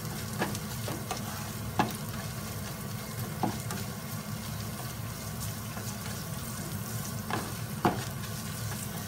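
Ginger, garlic, pandan and curry leaves sizzling in hot oil in a non-stick frying pan, stirred with a spatula. A few sharp clicks come from the spatula knocking against the pan, the loudest about two seconds in and near the end.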